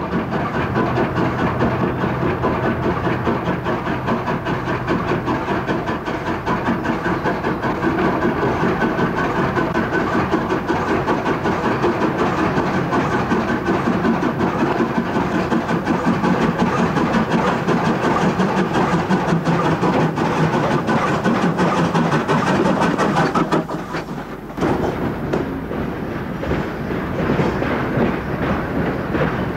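Peckett 0-6-0 saddle tank steam locomotive working a train of loaded coal wagons: a rapid, steady run of exhaust beats and wagon rattle. The sound drops away for about a second some three-quarters of the way through, then resumes a little quieter.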